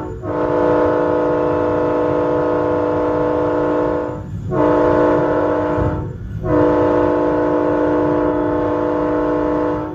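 Nathan K5LA five-chime air horn on an LIRR DM30AC diesel locomotive sounding a steady chord. The end of one blast is followed by a long blast, a short one and another long one, the grade-crossing warning pattern. The low rumble of the passing train runs under it.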